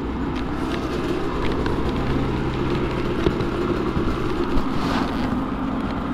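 A Polaris two-stroke snowmobile engine idling steadily, with a few light knocks of handling in the background.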